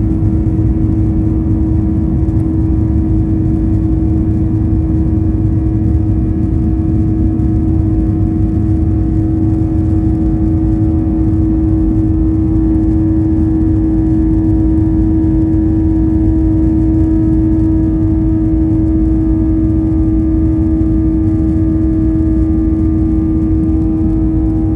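Cabin noise inside a Boeing 737-900ER, whose CFM56-7B engines run at a steady setting. Under a constant low rumble sits a single steady hum, with fainter higher tones above it.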